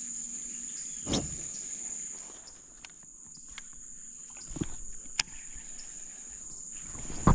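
Insects chirring in a steady high-pitched drone, with a few short knocks and splashes: one about a second in, two more past the middle, and one at the end.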